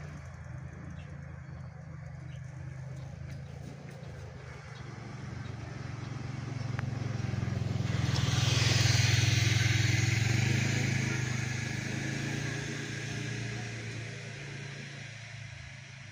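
Low, steady engine drone from a diesel train pulling away along the line. About eight seconds in, a louder passing motor vehicle with a hiss joins it, swells and then fades.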